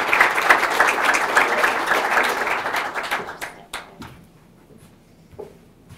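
Audience applauding, a dense patter of many hands clapping that dies away about three seconds in, leaving a few last scattered claps.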